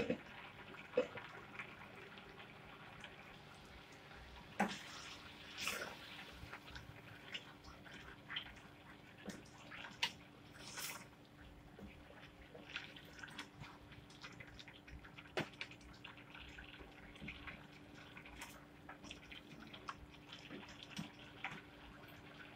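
Pineapple jam simmering and thickening in a nonstick pan as its water cooks down, bubbling with scattered soft pops, and a spatula stirring and scraping the pan now and then. A sharp knock right at the start is the loudest sound, and a faint steady hum runs underneath from about five seconds in.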